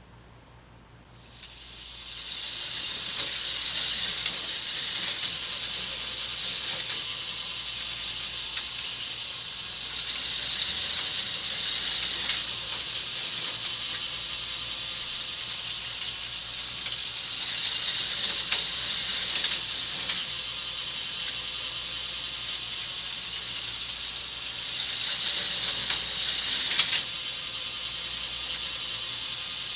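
K'nex plastic roller coaster running: its lift mechanism clicks steadily like a ratchet, starting about a second and a half in. Louder rattling surges come roughly every seven seconds as the train runs along the track.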